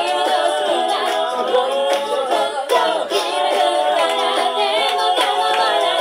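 A cappella group singing live: a woman's lead voice into a microphone over many voices singing the backing parts together, with no instruments.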